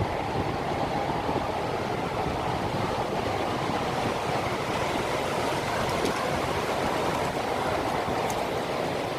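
Storm-force wind blowing hard and steadily, a dense rushing noise with the gusts buffeting the microphone.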